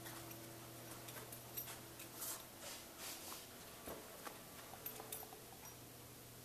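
Quiet indoor room tone: a steady low electrical hum with scattered faint ticks and soft rustles.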